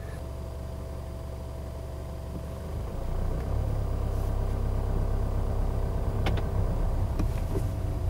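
Jaguar XE's 2.0-litre four-cylinder turbodiesel heard from inside the cabin. It idles steadily, then rises a little in revs and loudness about three seconds in as the car moves off and creeps along very slowly in first gear.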